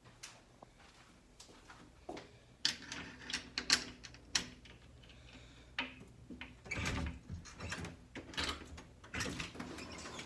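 Irregular clicks, taps and light rustles, more of them in the second half, with a low thud about seven seconds in: handling noise from a phone being moved around while it films.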